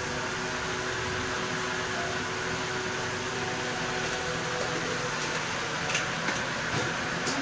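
Steady mechanical whir with a faint hum running throughout, and a couple of light clicks near the end.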